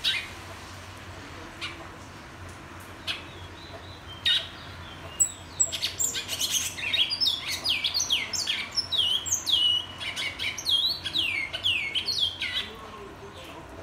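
Caged twa-twa seed-finch (bicudo) singing: a few separate sharp call notes, then, about five seconds in, a fast run of whistled notes that each slide downward in pitch, lasting about seven seconds before it stops.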